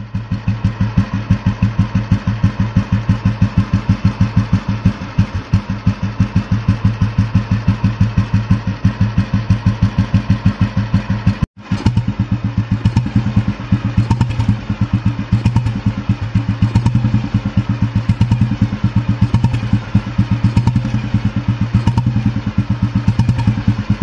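Exhaust note of a 1964 Royal Enfield G2 Bullet 350's single-cylinder four-stroke engine idling steadily, an even beat of exhaust pulses at one unchanging pace. The sound breaks off for an instant near the middle and then carries on.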